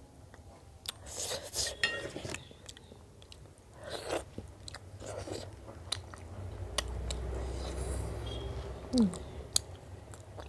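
A person chewing and biting food close to the microphone, with crunches and sharp mouth clicks scattered through.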